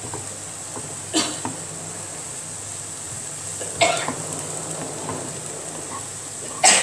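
Chopped onions sizzling in a little oil in a frying pan as they are stirred with a wooden spatula, with three brief sharp noises about a second in, near the middle and near the end, the last one the loudest.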